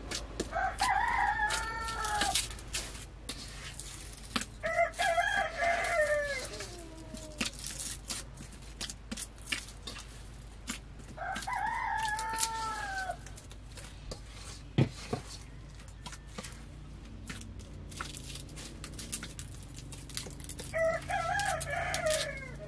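Rooster crowing four times, each crow a two-to-three-second call that rises and falls, with scattered clicks and knocks in between.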